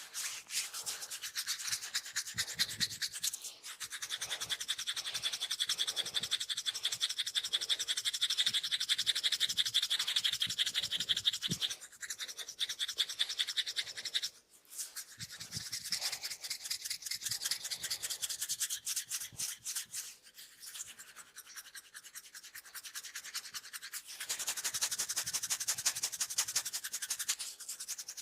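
Hands rubbing briskly back and forth over the body in a massage: a fast, dense friction rustle in several long runs with short breaks between them.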